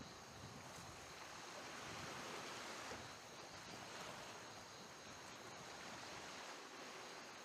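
Faint outdoor ambience: a soft, even rushing noise that swells a little about two seconds in.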